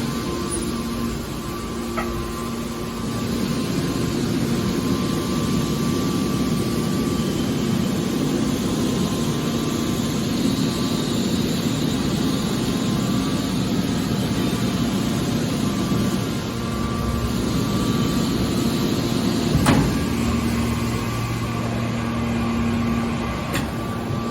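Hydraulic metal scrap baler running with a steady machine hum and a few sharp metallic knocks, the loudest about four-fifths of the way through.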